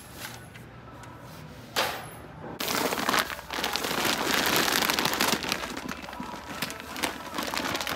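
A large plastic bag of Purina ONE dog food crinkling and rustling loudly as it is lifted off a stack and handled, after a single knock about two seconds in.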